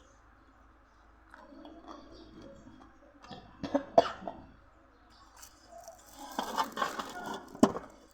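A person coughing in short bouts, twice, mixed with eating noises.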